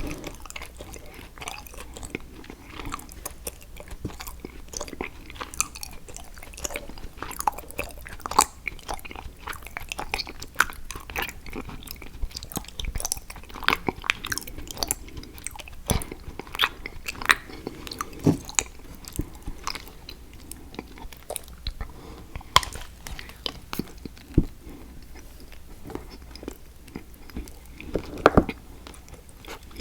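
Close-miked chewing and biting of chocolate, with irregular crisp snaps and crackles as pieces break off between the teeth and are crunched.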